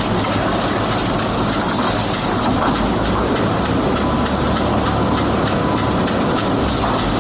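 Wood-processing machinery running steadily, a loud, even mechanical noise with no pauses.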